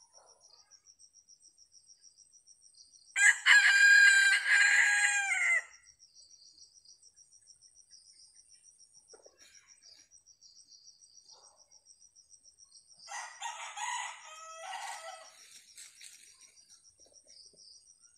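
Red junglefowl rooster crowing loudly once, about three seconds in, with a second, fainter crow about ten seconds later. Crickets chirr steadily throughout.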